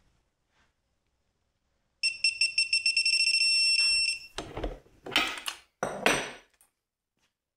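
Digital torque adapter on a torque wrench beeping: a high electronic tone in rapid pulses that runs into a steady tone for about a second, signalling that the set torque has been reached. Three short metallic clattering handling noises follow as the wrench and adapter are moved.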